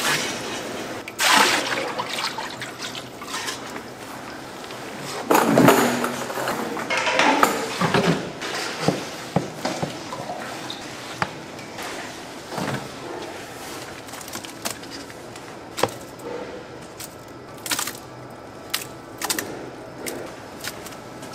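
Water poured and sloshing out of a stainless-steel bowl into a plastic crate, followed by scraping and sharp clinks of a metal scoop working through a coarse dry mix.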